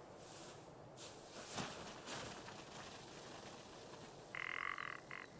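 Faint hiss with a few soft swishes, then, about four seconds in, a short rasping croak-like animal call in two parts: a longer one and a brief one.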